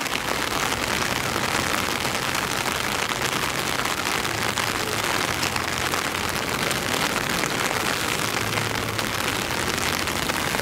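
Heavy rain falling steadily on wet paving, a dense, even patter of drops that does not let up.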